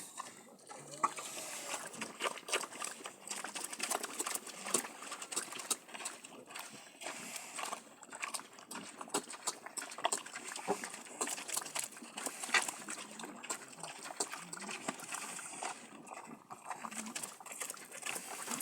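Farm livestock moving about in a pen: scattered clicks and knocks, like hooves on a hard floor, over a steady hiss.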